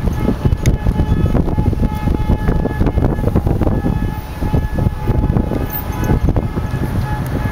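Wind and handling buffeting the camera microphone as a continuous, uneven rumble, over a steady held horn-like tone.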